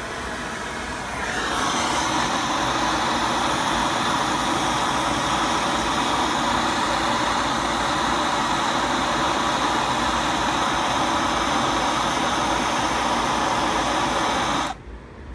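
Propane torch flame burning steadily as it heats a copper bus-bar soldering tip. It grows louder about a second in and cuts off suddenly near the end.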